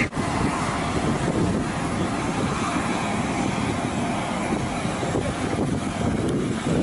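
Steady, dense rushing noise of a large cargo aircraft's machinery running.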